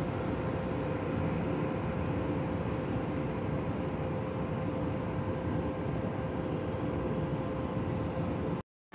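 French TER double-deck electric multiple unit pulling away through the station tracks: a steady running rumble with a constant hum over it. The sound cuts off suddenly near the end.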